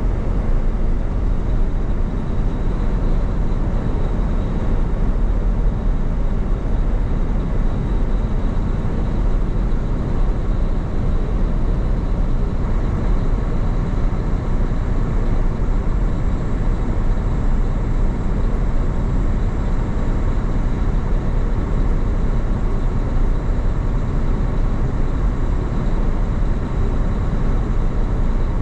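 Steady engine and road noise of a semi-truck cruising on the highway, heard from inside the cab: an even low drone with a faint high steady tone above it.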